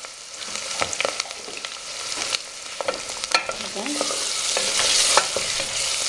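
Chicken, onion and chickpeas sizzling in oil in a pot while a wooden spoon stirs and scrapes them, with scattered small knocks of the spoon against the pot. The sizzle grows louder about four seconds in as the pieces are turned.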